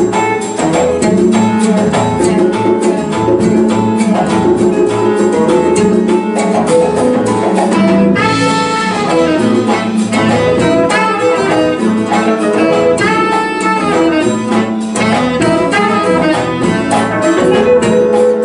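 Live jazz-fusion band playing: saxophone and trumpet over piano, congas and guitars. A bright horn line comes in about halfway through.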